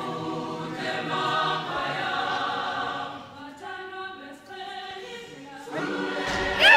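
A choir singing, dropping quieter about three seconds in and swelling again near the end, where one voice slides up in pitch and back down.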